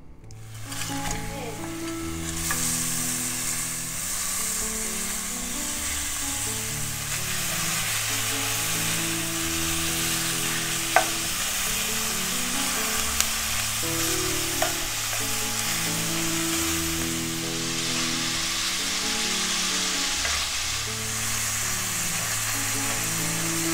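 Ground beef sizzling as it hits the hot stainless steel skillet, then frying steadily while it is broken up and stirred with a wooden spatula, with a few sharp clacks of the spatula against the pan. Soft background music plays underneath.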